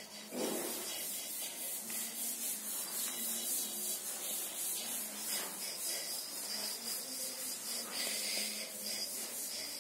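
Playing cards rubbing and sliding against each other as they are handled and laid out, with a steady hiss underneath.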